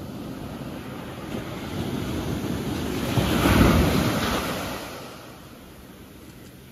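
Ocean surf on a sand beach: a wave breaks and washes up the shore, building to its loudest about three and a half seconds in, then falling away.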